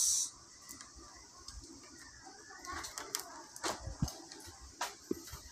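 Faint scattered clicks and light knocks from power and audio cables and plugs being handled at the back of an amplifier, over a quiet room background.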